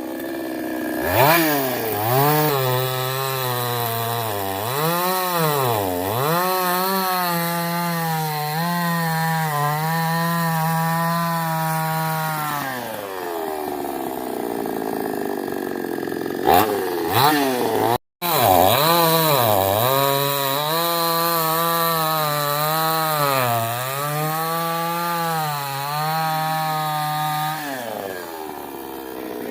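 Two-stroke chainsaw cutting through a coconut trunk. Its engine pitch repeatedly sags and recovers as the chain bites into the wood. Around the middle it drops back toward idle, then it is cut off for an instant and resumes cutting with the same wavering pitch.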